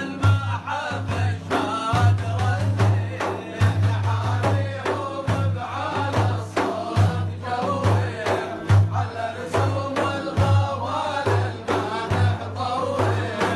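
A male praise singer (maddah) singing an Arabic devotional song, his voice wavering in long melismatic lines over a steady rhythmic accompaniment with a pulsing low beat.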